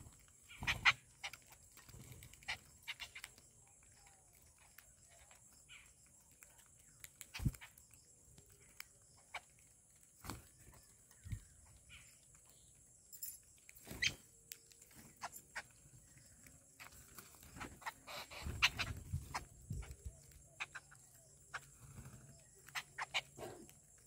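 Babblers and common mynas feeding on scattered namkeen on a hard ledge: irregular pecking taps, hops and wing flutters, with a busier flurry about three quarters of the way through. A faint steady high hiss runs behind.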